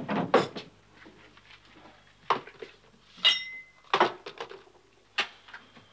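Scattered knocks and clinks of kitchenware being handled while someone gropes about for matches in the dark, with one ringing metallic clink about three seconds in.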